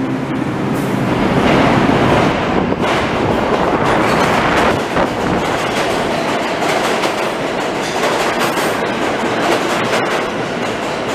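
New York City subway train moving along the platform of an underground station, a loud steady rumble with its wheels rattling over the track.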